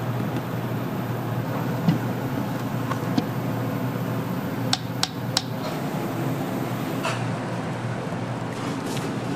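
Kitchen background noise with a steady hum and a few sharp clicks and taps of utensils or dishes, three of them in quick succession about five seconds in.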